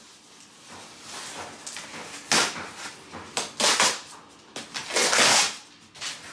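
Large cardboard box being torn and pulled open by hand: several bursts of ripping and rustling cardboard, the loudest about five seconds in.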